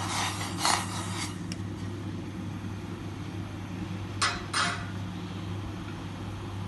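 A metal spoon stirring and scraping in a steel saucepan of watery chutney: a few strokes in the first second, then two sharp clinks against the pan about four seconds in, over a steady low hum.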